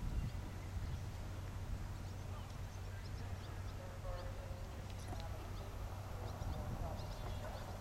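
Faint hoofbeats of a horse cantering on grass under a steady low rumble, with short bird chirps and a few brief distant calls.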